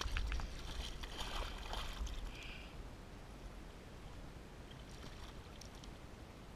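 A released carp splashing at the surface beside a kayak hull, strongest right at the start and dying away after about two and a half seconds, followed by faint steady water noise.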